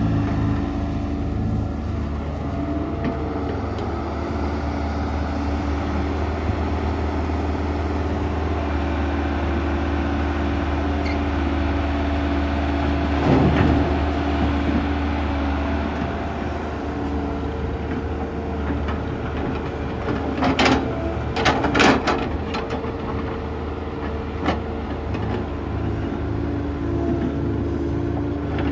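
Kobelco SK120-1 excavator's diesel engine running steadily, its hum shifting slightly in pitch as the machine works. It is broken by a brief clatter about halfway through and a quick run of sharper knocks and clatters about three-quarters of the way through.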